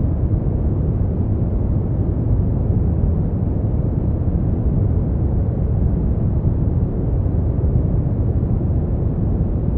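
Synthetic brown noise: a steady, even rumbling hiss, strongest in the bass and dying away above the mid range, with no change in level.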